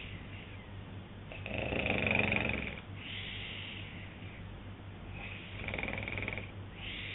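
A man snoring in his sleep: two snores about four seconds apart, the first the louder, each followed by a softer breath.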